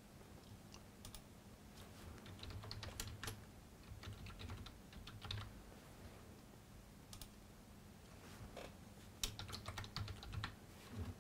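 Faint computer keyboard typing in two runs of keystrokes, one starting about two seconds in and another near the end.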